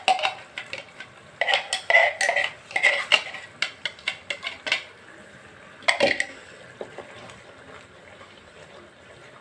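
A spoon clinking and scraping against a bowl and a steel kadai as tomato paste is scraped into the pan: a quick run of clinks about one and a half to five seconds in, one more knock at about six seconds. After that only the faint bubbling of the masala cooking in the pan.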